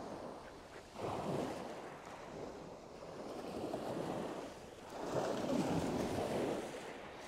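Small breaking waves washing up over a shingle beach and running back, surging about a second in and again around five seconds in.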